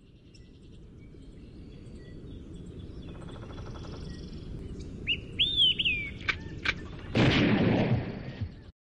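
Outdoor pond ambience fading in, a low steady background that grows louder, with a few whistled bird calls and sharp chirps about halfway through. About seven seconds in a loud burst of noise breaks in and dies away over about a second, then the sound cuts off suddenly.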